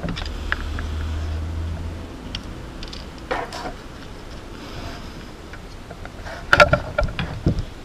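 Close handling noise of fingers working thin motor wires right at the microphone: rustling and light clicks, with a low rumble that stops about two seconds in and a cluster of sharper clicks near the end.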